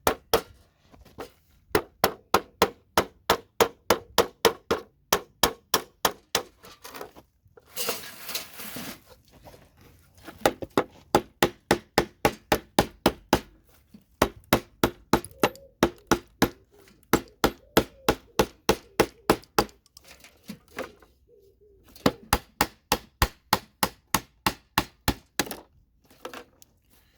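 Repeated metal-on-metal striking: a makeshift striker, standing in for a lost hammer, knocks a wedge tool under a CPU socket to pry it whole off a motherboard. The blows come at about three a second in runs with short pauses, with a second of scraping about eight seconds in.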